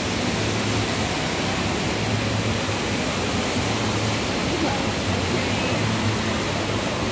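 Steady, even rush of the Rain Vortex, the large indoor waterfall at Jewel Changi Airport, falling water hissing continuously.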